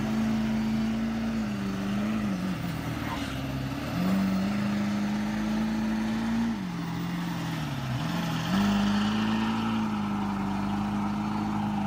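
Pickup truck engine revving high and held under heavy load as the truck strains to tow a semi truck through snow with its tires spinning. The engine note sags twice and climbs back.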